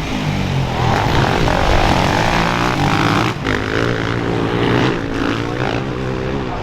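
Motocross race engines running hard on the track, their pitch climbing and falling with throttle, with a brief dip in the sound about three seconds in.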